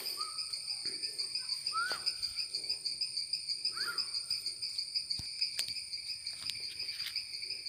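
Steady chorus of forest insects, a continuous high pulsing trill. A couple of faint short rising whistles and a few faint clicks sound over it.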